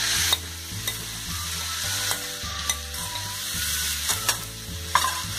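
Damp flattened rice flakes (poha) stirred into a hot pan with a wooden spatula, with a light sizzle of frying and several sharp clicks of the spoon and spatula against the plate and pan.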